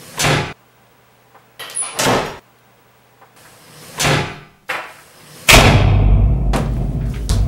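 Wooden doors slamming shut one after another, four or five sharp bangs a second or two apart. About five and a half seconds in, a loud sustained sound with a deep, heavy low end sets in.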